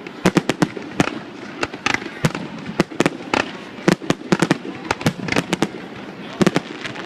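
A fireworks display exploding in rapid, irregular bangs, several a second, with crackling between the reports.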